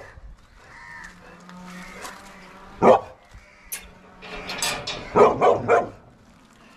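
Caged dogs barking: a single bark about three seconds in, then a quick run of about four barks near five seconds in.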